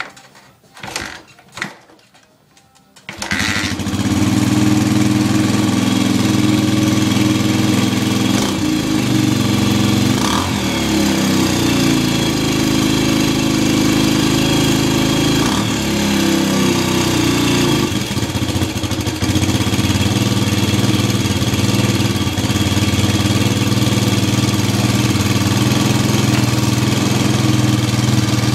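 A 2008 Suzuki DR-Z125L's single-cylinder four-stroke engine is kick-started from cold. After a few kicks it catches about three seconds in and runs, with the revs rising and falling a few times before it settles into a steady idle.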